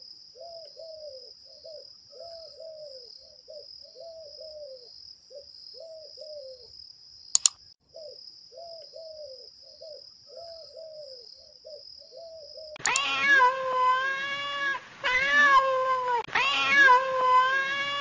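Domestic cat meowing loudly, a string of drawn-out meows about a second apart, starting about thirteen seconds in. Before it, faint short calls repeat two or three times a second under a steady high whine, with one sharp click about seven seconds in.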